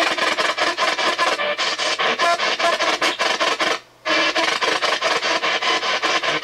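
P-SB7 spirit box sweeping the AM radio band: a rapid, choppy run of radio static with brief fragments of broadcast sound. It cuts out for a moment about four seconds in.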